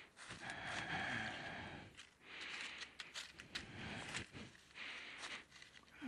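Breathing close to a microphone fixed on a face shield: soft in-and-out breaths about every two seconds. Dry leaves and twigs crackle between them.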